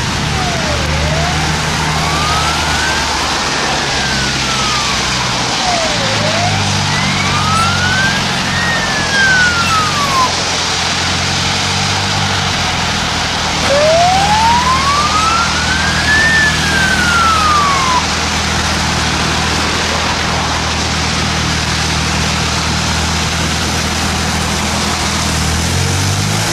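Fire engine siren on wail, rising and falling in slow sweeps of a few seconds each. It breaks off about ten seconds in and returns for one more rise and fall before stopping. A truck engine runs steadily underneath.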